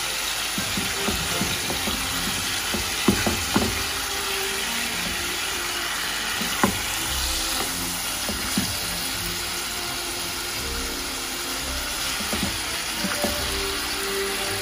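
Chicken pieces sizzling steadily in a frying pan as a wooden spatula stirs them, with a few sharp knocks of the spatula against the pan. Soft background music plays underneath.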